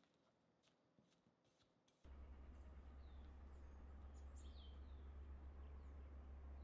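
Near silence: a few faint light clicks, then about two seconds in a low steady hum comes on suddenly, with faint bird chirps over it.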